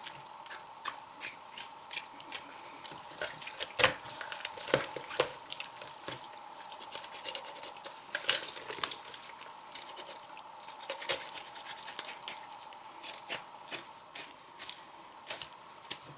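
A small knife working through a raw chicken to take the legs off: wet squishing and sticky cutting of flesh and skin, with many irregular clicks and ticks, over a faint steady hum.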